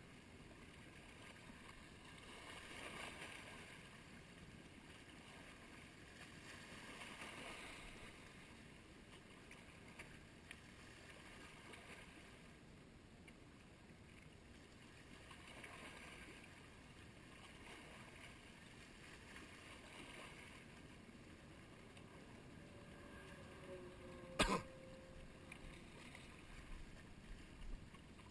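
Small waves washing faintly against a rock riprap shore, swelling about every four seconds. A single sharp knock sounds near the end.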